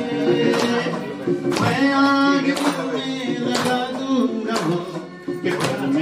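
A man singing a song into a microphone over a backing track with a steady beat of about one hit a second. The voice drops out briefly a little past four seconds in.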